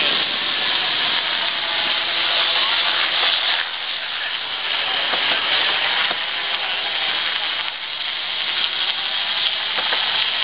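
Steady rush of wind and water aboard a Farr 44 racing yacht running downwind under spinnaker, with a few faint clicks in the noise.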